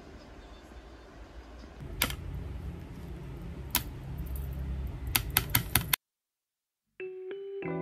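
Sharp taps of a knife and hands on a bamboo cutting board over a low hum: single taps about two and four seconds in, then five quick taps just before a second of dead silence. Background music with held notes starts near the end.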